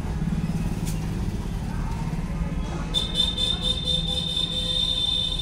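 A vehicle engine running steadily as a low hum. About three seconds in, a high, thin, steady tone joins it.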